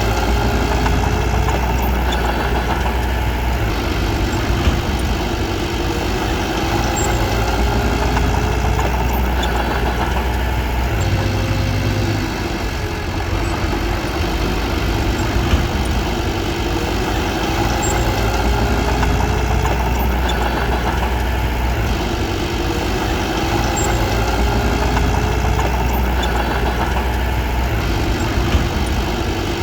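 Heavy diesel engine of a bulldozer running steadily with a deep low rumble.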